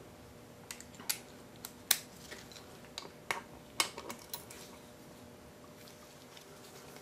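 Light metallic clicks and clinks of a ratchet wrench and steel sockets being handled, with a socket snapped onto the ratchet: a dozen or so scattered, sharp clicks, most of them in the first four seconds or so.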